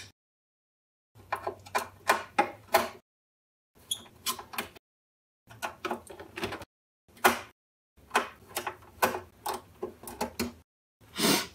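A screwdriver turning self-tapping screws out of a TR-808's plastic side cheeks: quick clicking and creaking from the threads in the plastic, in short runs with silent gaps between.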